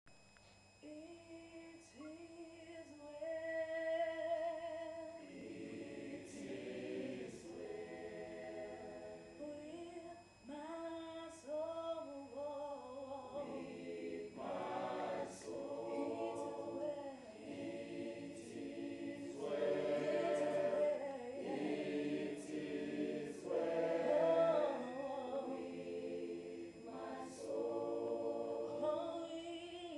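A mixed choir of men and women singing a cappella in harmony, holding long chords phrase by phrase; it starts softer and fills out about five seconds in.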